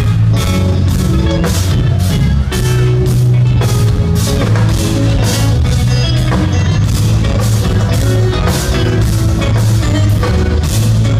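Live instrumental progressive metal played loud: heavily distorted eight-string electric guitars over heavy low notes, with a drum kit hitting in a steady pulse. Heard from within the audience.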